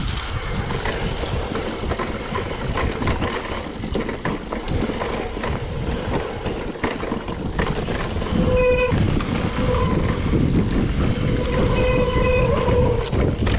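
Mountain bike riding down a rough trail: a constant rattle and rumble of the bike and tyres over rocks and gravel. The disc brakes squeal briefly with a high whine about nine seconds in and again near the end.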